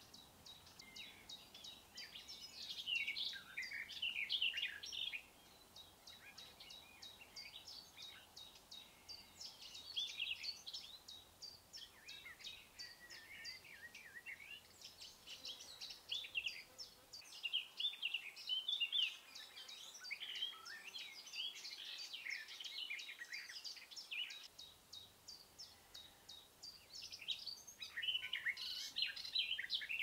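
Wild birds singing in several bouts of jumbled, twittering song, with a faint, fast high ticking behind.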